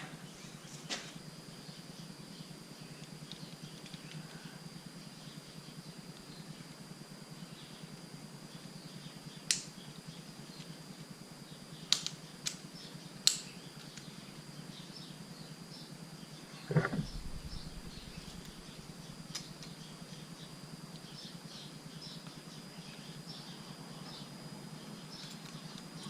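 Sparse handling sounds of work on a dirt bike's handlebar controls: a few sharp clicks and, about 17 seconds in, a heavier knock, over a faint steady high whine.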